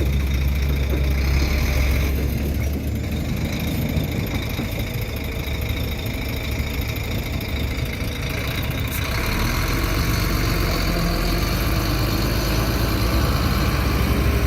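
Heavy diesel engine of construction machinery running steadily with a deep hum, growing somewhat louder and brighter about nine seconds in.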